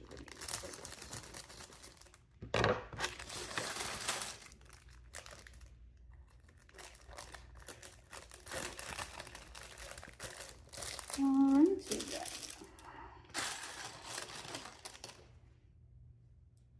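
Plastic bag of Lego pieces crinkling and tearing open in several bursts, with a short hum from a person partway through.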